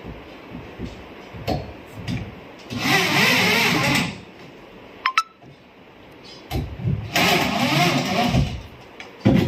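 Cordless drill driving wood screws through a metal TV wall bracket into a wooden wall: two runs of the motor, each about a second and a half, the pitch wavering as the screw bites. Light knocks and a short click come between the runs, and a sharp knock near the end.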